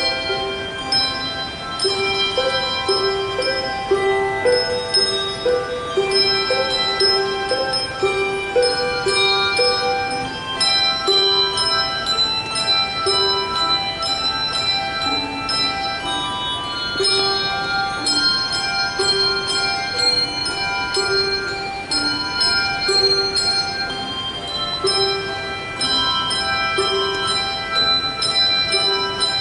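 Handbell choir playing a piece: many tuned handbells ringing, with a higher melody over a repeating pattern of lower bell notes, each tone ringing on and fading.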